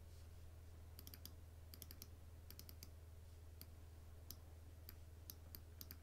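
Faint clicking of a computer mouse, in quick runs of three or four clicks at first, then single clicks about half a second apart, over a low steady hum.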